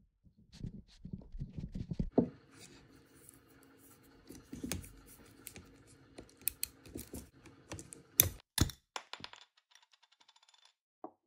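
Small metal clicks, taps and rustling as a jammed stainless steel watch bezel is worked off a Tag Heuer Kirium case held in a case vise, using a looped strap. Two loud sharp clicks come about eight seconds in.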